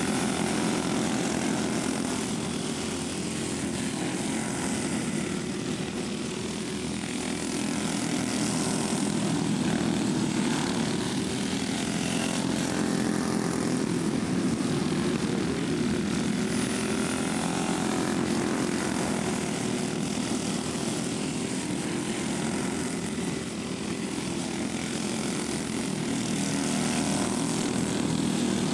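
Several dirt-track racing karts' small engines buzzing together as they race, the sound swelling and easing as the pack moves around the track.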